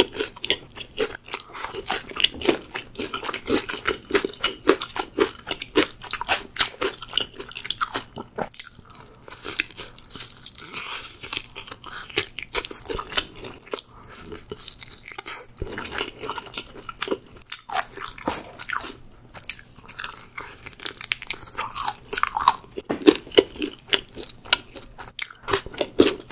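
Close-miked crunching and chewing of crispy fried chicken: bites into the crunchy coating followed by dense, crackling chewing.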